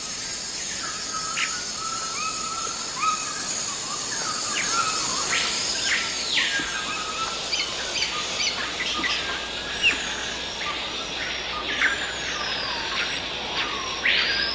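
Rainforest ambience: many birds calling with short chirps and whistles over a steady high insect drone. A longer call sweeps up and back down about halfway through and again at the end.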